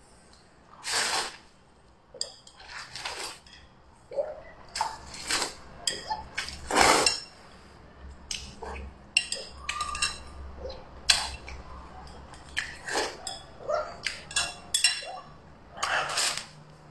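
A person eating noodles, slurping and chewing in short bursts, with chopsticks clicking and clinking against the bowl again and again.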